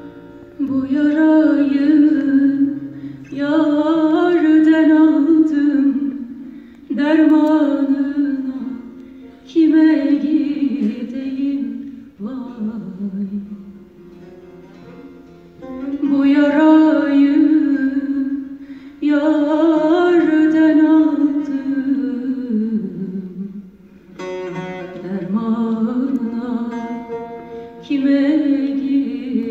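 A woman singing a Turkish folk song (türkü) solo in long held phrases that bend in pitch, with short gaps between them, accompanied by an ensemble of plucked bağlamas.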